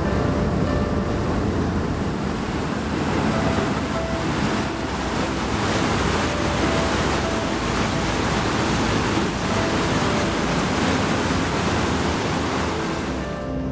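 River water rushing and churning in the wake of a moving excursion boat, with wind buffeting the microphone and a steady low rumble underneath.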